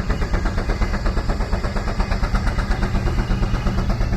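An antique tractor engine running with a steady, even exhaust beat, about five or six pulses a second.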